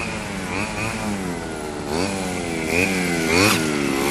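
Small bike motor running and being revved in short blips, its pitch rising and falling about four times.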